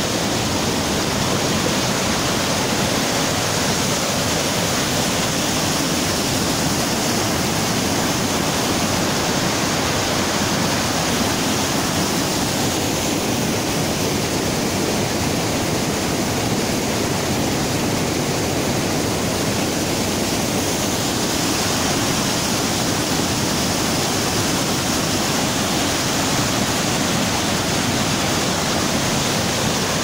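Waterfall pouring over a wide rock ledge into whitewater, with the fast river running on below it: a loud, steady rush of water.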